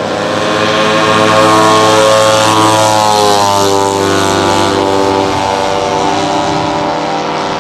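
Radio-controlled scale B-25 model's twin piston engines at takeoff power as it rolls and climbs out. The engines swell to their loudest about a second in, then drop in pitch about three to four seconds in as the plane passes by.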